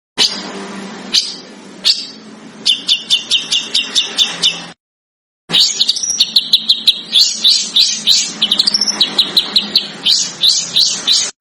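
A small songbird singing rapid series of short, sharp chirps, several per second, some sliding in pitch, over a low background hum. The song breaks off for a brief silence about five seconds in and resumes, faster and denser.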